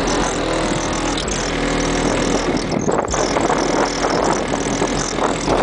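Car audio system with four Kicker CVX 12-inch subwoofers playing hip hop loudly, heard from outside the car, the deep bass notes strongest.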